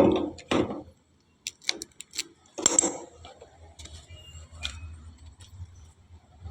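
Sharp clicks and taps, with the loudest knock about three seconds in, then fainter scattered clicks over a low steady hum.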